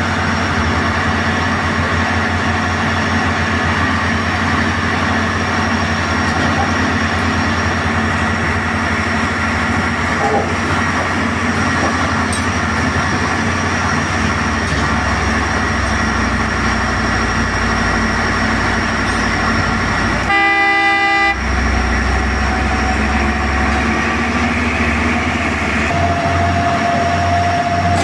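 Track-laying machine running steadily, its engine and sleeper conveyor making a constant mechanical drone. About twenty seconds in, a horn sounds once for about a second. Near the end a steady higher tone joins the drone.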